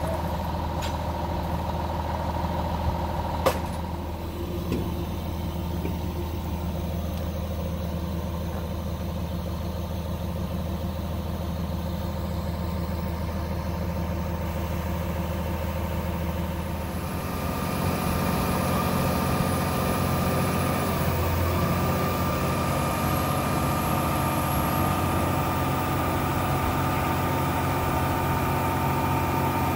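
Truck-mounted mobile crane's diesel engine running steadily, then picking up speed and getting louder a little over halfway through as the crane works the lift. A single sharp knock sounds a few seconds in.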